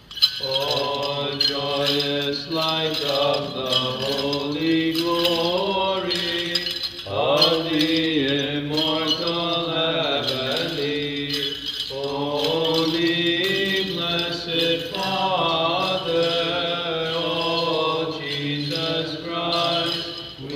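Liturgical chanting at Orthodox Vespers: a sung melodic line moving in pitch over a steady held low drone note, with faint short clicks throughout.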